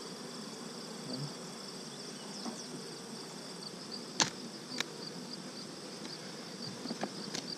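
Honey bees buzzing around an open hive, a steady hum. A sharp knock about four seconds in and a lighter one just after come from the wooden hive box being handled.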